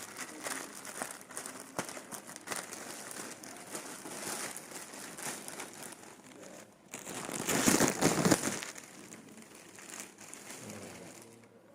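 Crinkly packaging wrapper rustling and crackling as it is handled one-handed, with a louder burst of crumpling about seven seconds in that lasts a second or so.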